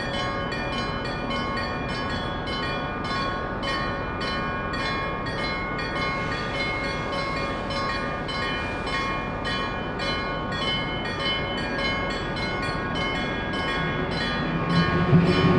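Level-crossing warning bell of the old hanshō (fire-bell) type, struck in a rapid, even beat, each strike ringing on. Near the end a deeper rumble swells up under it.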